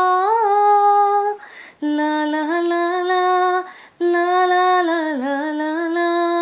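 A woman's voice sings long, held wordless notes with no accompaniment heard: three sustained phrases separated by short breaths, the last one dipping in pitch about five seconds in and held steady after.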